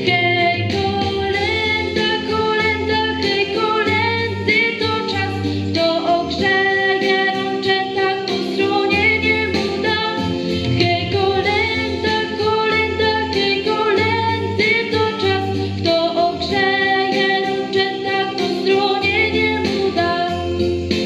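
A young female singer sings a Polish Christmas carol into a microphone over an instrumental accompaniment of sustained chords and a steady bass line.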